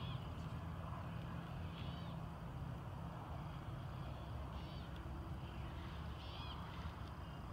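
Birds giving short chirping calls every couple of seconds, over a steady low rumble of wind on the microphone.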